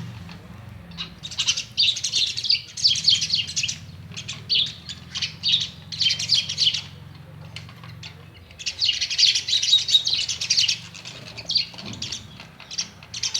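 A myna chattering and chirping at its own reflection in a mirror, in several dense bouts of rapid high notes; the longest bout comes a little past the middle. A faint steady low hum runs underneath.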